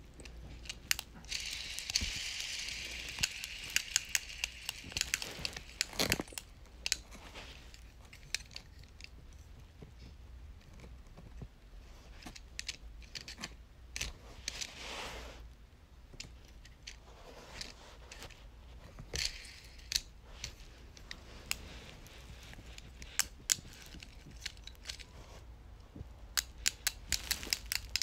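Fidget toys and their packaging being handled: irregular sharp clicks and taps, with spells of crinkling or tearing a couple of seconds in and again about two-thirds of the way through.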